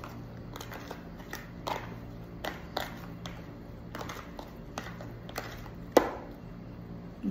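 Metal spoon stirring and scooping thick açaí mixed with tapioca flour in a plastic tub: repeated scrapes and clicks against the container, with one sharp knock about six seconds in. A steady low hum runs underneath.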